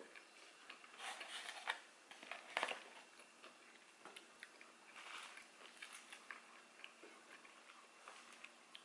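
Faint chewing and crunching of nacho tortilla chips, with a few sharper crunches about a second in and again between two and three seconds in.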